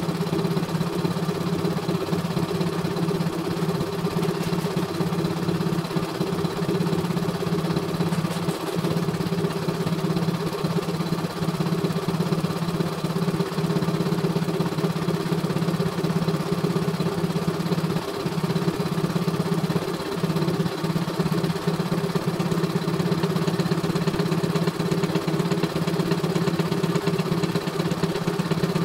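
CNY E900 computerized embroidery machine stitching a design, a steady, even mechanical running hum as the needle works and the hoop carriage moves the fabric.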